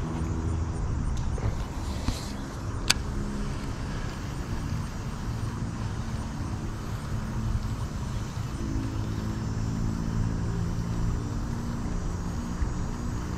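An engine running steadily with a low hum, with a single sharp click about three seconds in.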